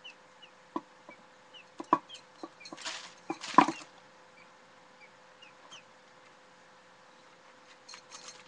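Guinea fowl pecking at food: scattered sharp taps, with two short noisy bursts about three seconds in, the second the loudest, then only a few taps.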